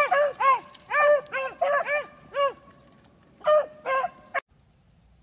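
Beagles baying on a rabbit's trail: short, high yelping bays with a rise-and-fall in pitch, two or three a second with a short break, the sign of the pack running a rabbit by scent. The sound cuts off abruptly near the end.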